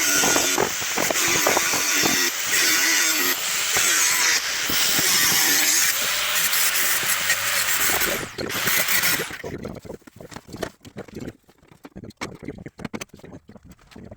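Power tool with an abrasive disc cutting and grinding car body sheet steel in a series of short passes: a harsh grinding hiss over a wavering motor tone. It stops about nine seconds in, and then come light, scattered knocks and clatter.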